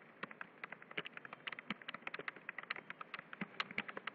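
Computer keyboard keystrokes: quick, irregular typing, many separate key clicks.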